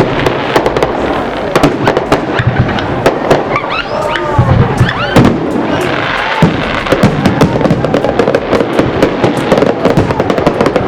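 Fireworks going off in quick succession: a dense, continuous run of sharp bangs and crackles, several a second.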